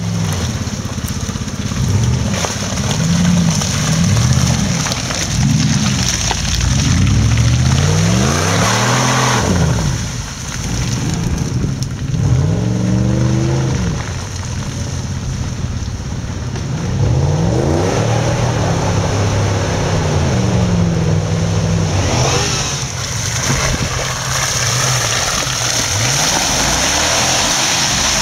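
Off-road 4x4's engine revving up and down over and over, its pitch rising and falling every few seconds as it is driven through rough terrain.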